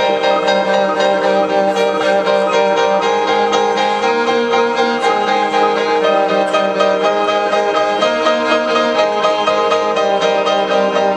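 Live instrumental music: a Baldwin grand piano and a cello playing together with electronics, a continuous passage of many held, overlapping notes.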